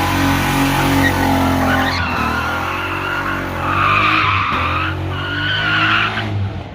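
BMW E36 engine revving hard while its rear tyres squeal in a drift. The squeal starts about two seconds in, is loudest around four seconds, and stops just before the end.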